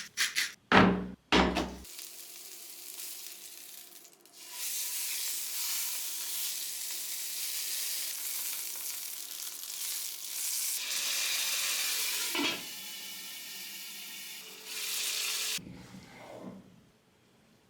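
Food frying in hot oil, a steady sizzle that starts a few seconds in and cuts off near the end. Two loud knocks come about a second in.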